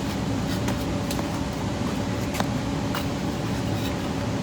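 Steady low hum with a few light clicks and taps, as bricks are set onto a toy RC loader's load.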